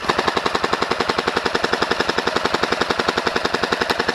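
Airsoft electric gun firing one long full-auto burst from a high-capacity magazine: a rapid, even rattle of about fifteen shots a second that starts suddenly.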